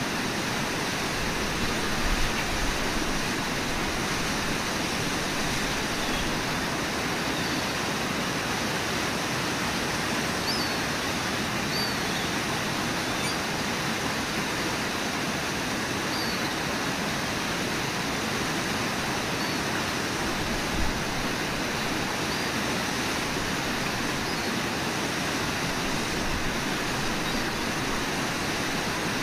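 Steady, unbroken rush of a waterfall and the whitewater rapids below it.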